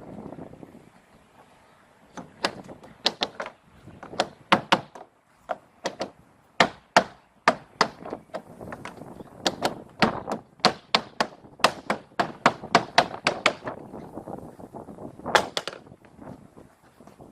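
Hammer blows on wood, in irregular runs of sharp knocks about two to three a second with short pauses, as in nailing new sheathing into a flat roof deck.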